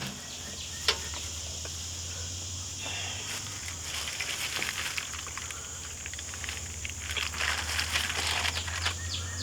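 Low background noise: a steady high hiss and a low hum, with light rustling handling noise and a single click about a second in.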